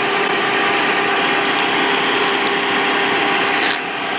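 Electric stand mixer running steadily, whisking egg whites: an even motor-and-gear hum.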